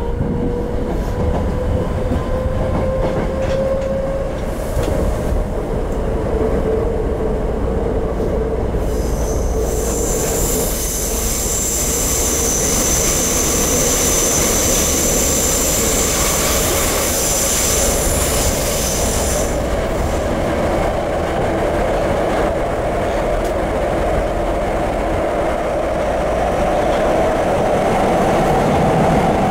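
Tokyo Metro 02 series subway car with its original Toshiba IGBT-VVVF inverter, heard from inside the car while running: a steady rumble of wheels on rail under a traction motor whine that rises in pitch at the start and climbs again through the last third. From about ten seconds in, a high-pitched wheel squeal sounds for about ten seconds and then stops abruptly.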